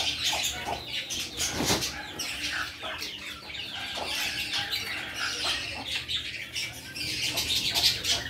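A flock of budgerigars and cockatiels chattering in an aviary: a dense, unbroken run of high chirps.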